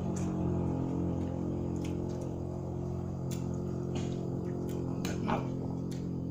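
Close-up eating sounds: scattered wet chewing clicks and lip smacks from someone eating with their hands, over a steady low hum.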